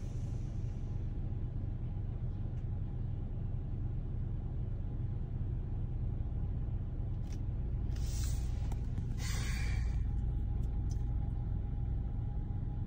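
Automatic car wash heard from inside the car: a steady low rumble of the wash machinery through the cabin, with a high hiss fading out about a second in and two short bursts of hiss later on.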